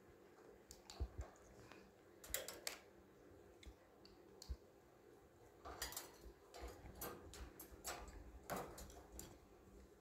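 Faint, scattered clicks and taps from an African grey parrot moving about its metal wire cage. A few come in the first seconds, then a quicker run of them in the second half.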